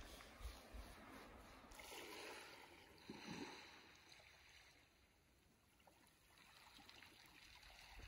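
Near silence: a faint hiss of outdoor noise with two soft swells in the first few seconds, then dead quiet.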